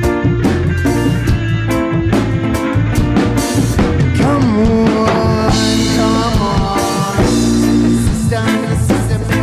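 Reggae band playing an instrumental passage: drum kit keeping a steady beat under held bass notes and guitar, with a lead line that slides and bends in pitch a few seconds in.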